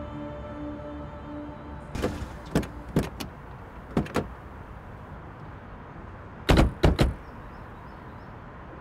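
Car doors opening and shutting: a few clicks and thuds about two to four seconds in, then a louder run of three door slams close together near seven seconds.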